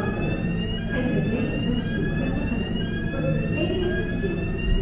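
An electronic warning signal sounding a short rising tone over and over, about one sweep a second, over the steady low rumble of a ferry's engine.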